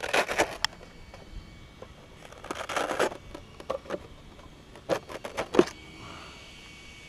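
Plastic body shell of an RC buggy being handled and pulled off its chassis: several short bursts of crackling and scraping, the loudest a little past five seconds in.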